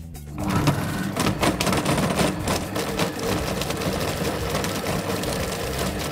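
Silvercrest Monsieur Cuisine Connect food processor starting up about half a second in and running steadily at speed 5, its blade chopping tomatoes in the steel mixing bowl, with irregular clicks throughout.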